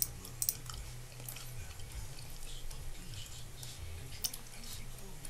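A few scattered computer mouse clicks, the two sharpest right at the start and about half a second in, over a low steady hum.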